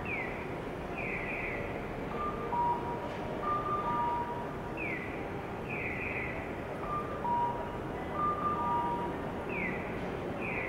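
Looping electronic station guidance chimes: a two-note 'pin-pon', high then lower, repeating every second or so, and a separate set of quick falling chirps recurring every four to five seconds, over the steady hum of the station.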